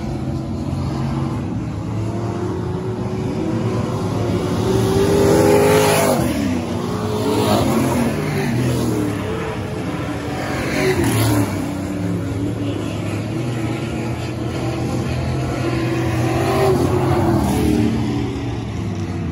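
A pack of dirt-track race cars running hard around the oval, several engines at once. Cars pass close twice, once about a third of the way in and again a little past the middle, each time louder, with the engine note dropping as the car goes by.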